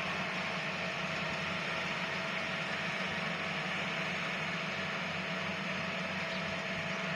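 Engine of a rice-harvesting machine running steadily: a constant drone with a thin, even whine over it.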